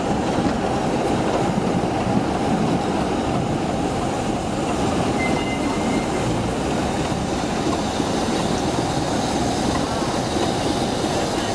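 Passenger train moving slowly along a station platform, heard from an open carriage window: a steady rumble of the train running on the rails.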